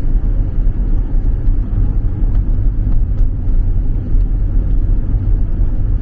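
Steady low rumble of a car on the move, engine and tyre noise heard from inside the cabin.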